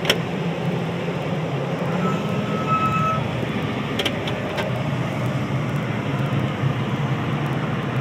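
John Deere 9430 tractor's diesel engine running steadily under load while pulling a disk tillage implement through the field, heard from inside the cab. A couple of light clicks, near the start and about four seconds in.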